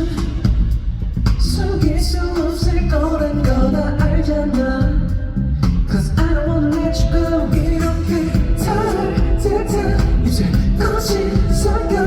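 Loud live pop music over a concert PA system, with a strong, steady bass and a pitched melody line.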